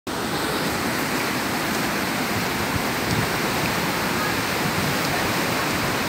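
Steady rushing of heavy floodwater pouring through a storm drain.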